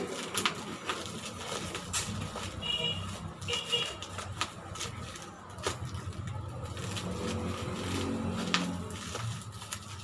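A parcel being cut and torn open by hand: scattered sharp clicks and rustles of packaging, over a low rumble that swells between about seven and nine seconds in. Two brief high tones sound around three seconds in.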